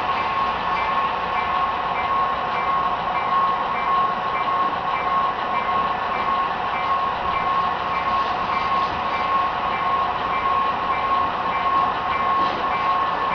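HO-scale model trains running on a layout: a steady running noise with a constant whine and a faint high tone pulsing at an even rate.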